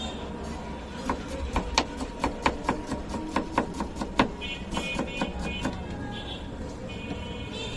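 Knife slicing a red onion on a cutting board: a quick run of sharp taps, about three to four a second, that thins out past the middle, over a steady background hum.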